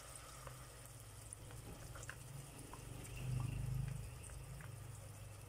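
Faint scattered crackles of oil and vinegar simmering in a rice cooker pot as soy sauce is poured in, over a low hum that swells for about a second around three seconds in.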